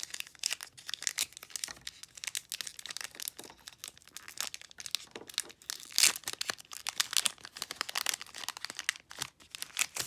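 Foil wrapper of a Pokémon trading card booster pack being torn open and crinkled: a dense run of crackles, loudest about six seconds in.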